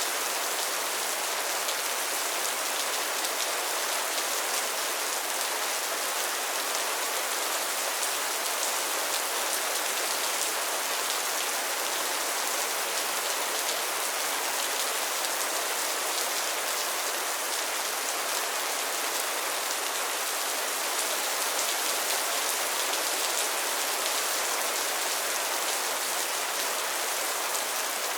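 Steady rain falling on a pond and its lily pads, a dense even patter of many small drops.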